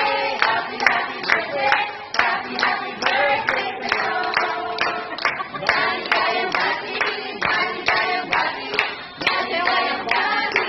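A group of women singing a birthday song together while clapping on the beat, about two claps a second.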